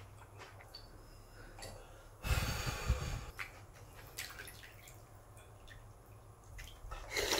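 Close-miked eating sounds of cold raw-fish soup (mulhoe): small chewing clicks, with a loud wet slurp of the broth about two seconds in and another starting near the end.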